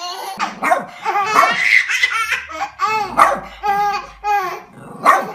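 A baby laughing hard, in a long run of short repeated bursts of laughter.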